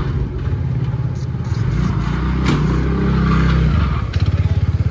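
A motor vehicle's engine running close up, its pitch rising a little and falling back around the middle.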